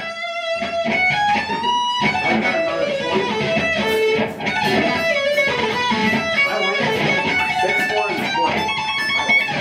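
Electric guitar played lead. A single note is held and bent upward over the first two seconds, followed by quick runs of single notes.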